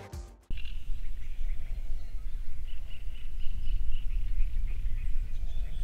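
Outdoor lakeside sound cutting in about half a second in: small birds chirping over and over in the background, over a steady low rumble of wind on the microphone.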